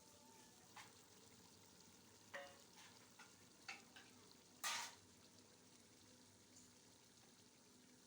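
Food frying faintly in a cooking pot while a stirring spoon knocks and scrapes against it: several short knocks, then one louder scrape about two-thirds of the way in.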